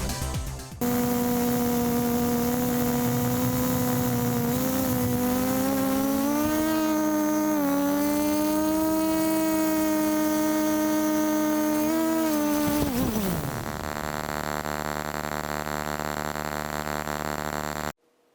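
Multirotor drone's Sunnysky X3508S brushless motors spinning 13-inch carbon propellers: a steady whine whose pitch rises and dips slightly with throttle. About two-thirds of the way in it glides steeply down as the motors spool down, and the sound cuts off abruptly near the end.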